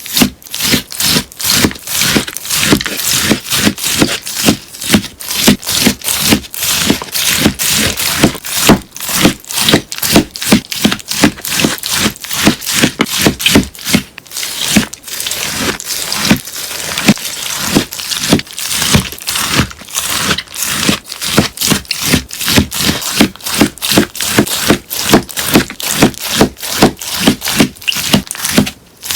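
Melamine sponge being cut, giving crisp, crunchy strokes at about three a second.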